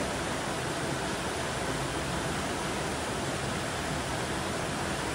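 Forest stream rushing over rocks, a steady even flow of water noise.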